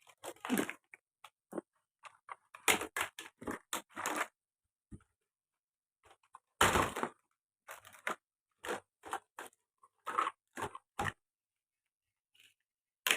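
Small plastic toys being handled, knocked together and dropped: a string of irregular short clicks and clacks with pauses between them.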